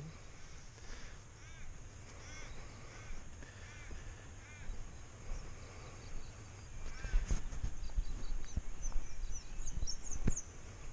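A bird calling over and over with short, arched, crow-like calls, a second or so apart, with a few high thin chirps near the end. Low knocks and rustles from the camera being handled grow louder in the second half.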